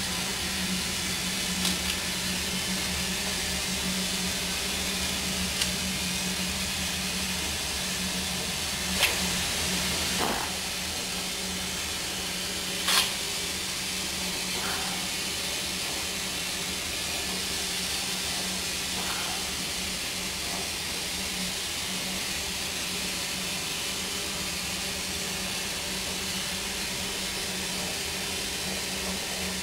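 Steady hiss of steam from the 2 ft gauge Darjeeling Himalayan Railway No. 19 steam locomotive standing in steam, over a steady low hum. A few sharp clicks stand out, the loudest about thirteen seconds in.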